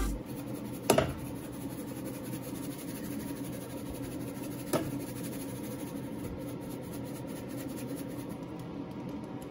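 Quiet kitchen handling sounds while pepper is shaken over a pot of macaroni: two light clicks, about a second in and again near halfway, over a steady low hum.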